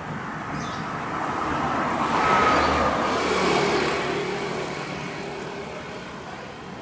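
Airbus A320 jet airliner with CFM56 engines passing by on its landing approach: a whining engine noise that swells to its loudest about three seconds in and then fades as the aircraft goes past, the whine dropping slightly in pitch.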